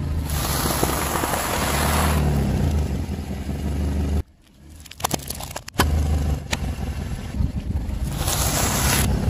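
Car tyre rolling over a heap of small coloured puffed balls and crushing them with a crackling crunch, over the steady low hum of the car's engine. About four seconds in, the sound drops away briefly, with a few sharp cracks. Near the end the tyre crunches through a pile of popcorn.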